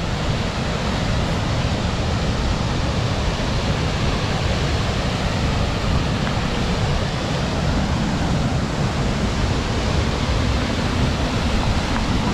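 Waterfall's water rushing steadily, an even roar with no breaks.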